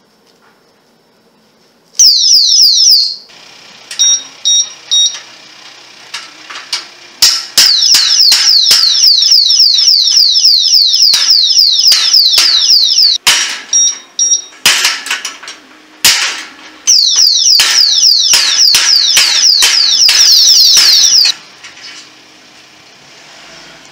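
Electronic alarm padlock sounding its tamper alarm: a loud high-pitched siren of rapidly repeating falling sweeps, briefly about two seconds in and again in two longer stretches from about seven and about seventeen seconds. Three short beeps come about four seconds in, and sharp knocks and clicks from the lock being struck or worked are heard throughout.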